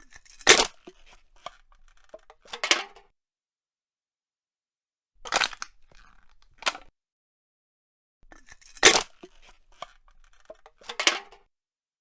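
Aluminium soda can being crushed: a sharp crunch, a run of small crinkles, then a second crunch. This happens three times, with silent gaps between.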